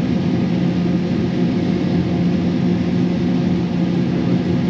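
Diesel engine of heavy harvest machinery running steadily: a continuous drone with a few steady low tones under a wash of machine noise.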